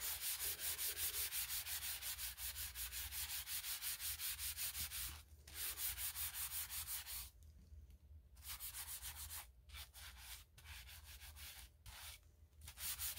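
Folded paper towel loaded with Bar Keepers Friend cleanser scrubbed back and forth over an epoxy-coated tumbler, a rapid rhythmic gritty rubbing of about five strokes a second. This is light scrubbing that dulls the glossy epoxy to a matte finish. It breaks off briefly a few times in the second half.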